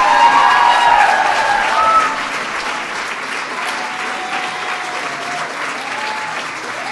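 A large audience applauding, with voices calling out over the clapping for about the first two seconds. The applause then goes on a little quieter.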